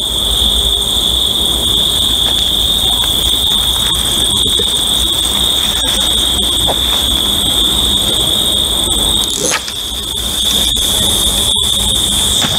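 Crickets trilling in one steady, unbroken high-pitched chorus, with a low rumble underneath.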